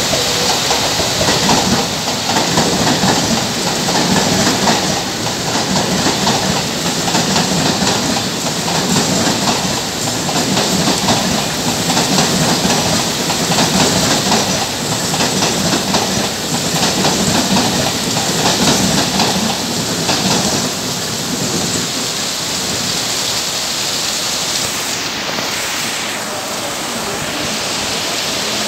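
Mumbai suburban local electric train running past, its wheels clattering over the rail joints in a swell every second or two, over the steady hiss of heavy rain. The clatter fades about twenty seconds in, leaving the rain.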